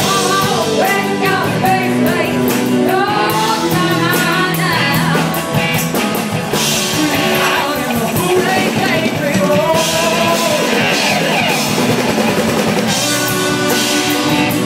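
Rock band playing live: a sung vocal line over guitar and a drum kit.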